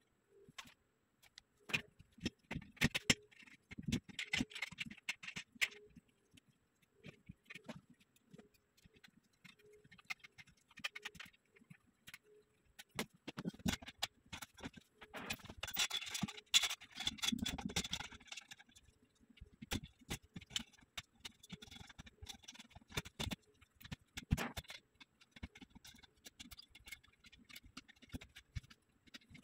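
Metal bed frame being assembled by hand: scattered clicks, taps and knocks of steel frame parts and bolts, with a busier stretch of scraping and rattling around the middle.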